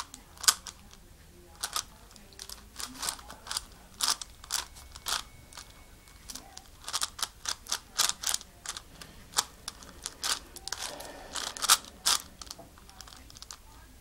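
A plastic 5x5x5 Rubik's cube being turned by hand: irregular clacks of the layers turning and snapping into place, in quick flurries with short pauses, and a longer scraping turn about eleven seconds in.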